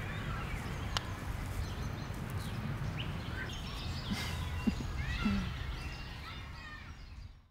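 Outdoor park ambience: birds chirping here and there over a steady low rumble, fading out near the end.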